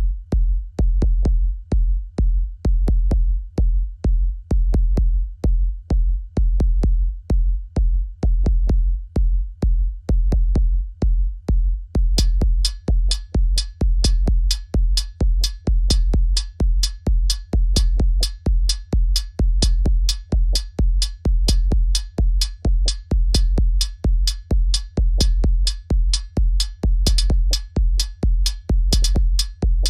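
Experimental techno with a heavy, steady drum-machine kick about two beats a second under thin clicking percussion. About twelve seconds in, a brighter ticking layer with a ringing tone joins the beat.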